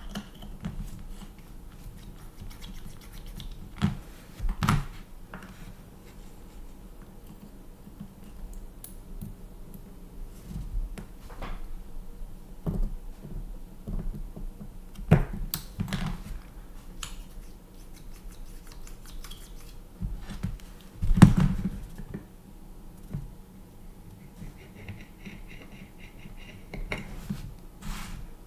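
Scattered clicks, taps and scrapes of an airsoft Glock pistol and its parts being handled during cleaning and maintenance, over a steady low hum. The loudest knock comes about three quarters of the way through.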